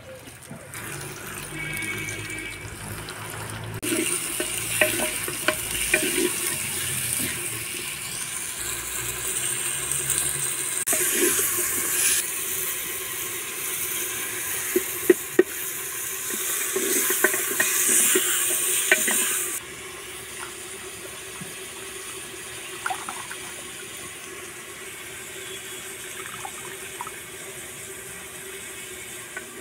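Cooking by hand with clay pots: sharp clicks and knocks as kohlrabi slices and whole spices drop into a clay pot over a steady watery hiss. About two-thirds through it turns quieter and steady, with water sloshing as leafy greens are washed by hand in a clay bowl.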